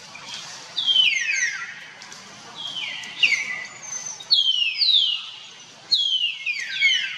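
A bird singing: four phrases of quick, high whistled notes, each note sliding down in pitch, about a second and a half to two seconds apart.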